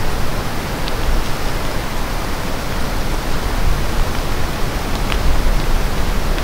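Steady hiss of light rain falling on the forest leaves, with a low rumble underneath.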